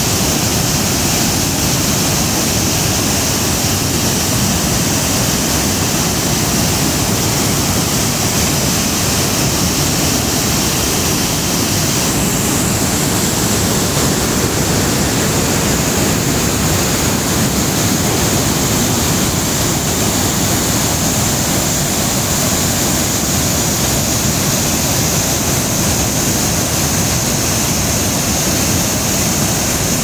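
Man-made waterfall, water pouring over a stone dam wall into a churning pool below: a loud, steady rush.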